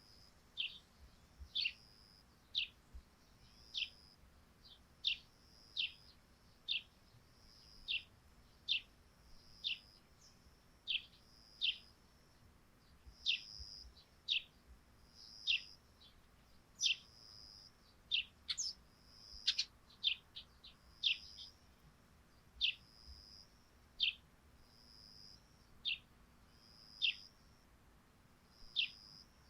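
Eurasian tree sparrows chirping: short, sharp chirps that drop in pitch, repeated about once a second.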